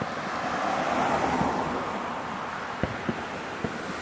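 Fireworks at a distance: a rolling rumble and echo from an aerial shell burst, then three sharp bangs in quick succession near the end.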